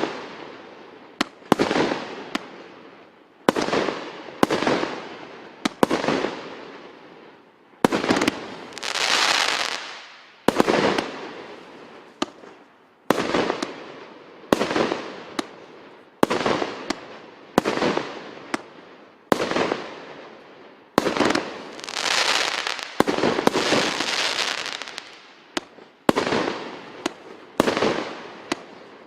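Multi-shot consumer fireworks cake firing shot after shot, about one every second or so. Each shot is a sharp bang followed by a fading hiss and crackle of bursting stars. Two longer stretches of dense crackling come about eight seconds in and again about twenty-one seconds in.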